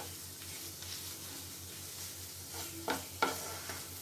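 Wooden spatula stirring and scraping khoya as it roasts in a nonstick frying pan, over a faint steady sizzle. Near the end, two sharp knocks of the spatula against the pan, a fraction of a second apart.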